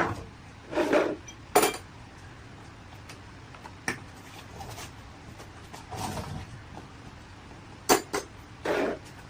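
Scattered metal clinks and knocks, a handful of separate strikes at uneven intervals, as metal parts and tools are handled during work on an engine.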